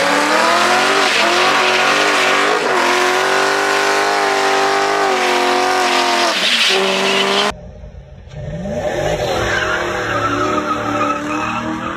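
BMW V8 in a Ford Transit van held at high revs through a burnout, tyres squealing. About seven and a half seconds in, the sound cuts to a quieter stretch where the engine revs up again and stays on the throttle.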